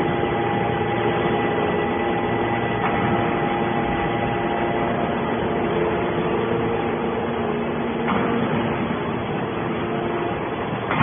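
Hydraulic can baler running: a steady machine drone with a few steady whining tones, from its hydraulic pump and motor.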